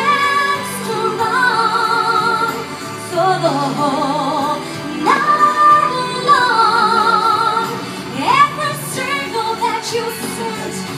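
A woman singing into a handheld microphone over backing music, holding long notes with a wide vibrato and sliding up into several of them.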